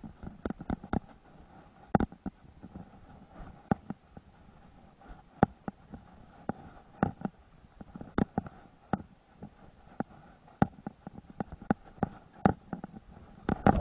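Spinning reel being wound in, a faint steady whine, under irregular sharp knocks and slaps about one or two a second, which are the loudest sounds.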